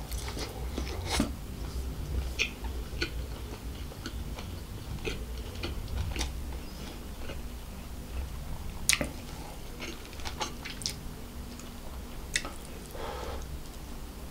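Close-miked chewing of tandoori roast chicken, with irregular wet mouth clicks and smacks, over a steady low hum.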